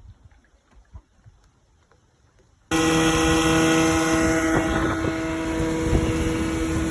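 Boat outboard motor running steadily at speed, a constant engine hum over rushing wind and water noise. It starts abruptly about three seconds in, after near quiet with a few faint ticks.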